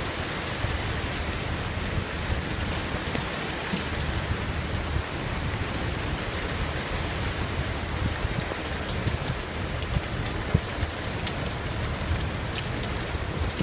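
Heavy rain falling steadily on a boat's deck and the water around it: an even hiss with scattered sharp drop hits and a low steady rumble underneath.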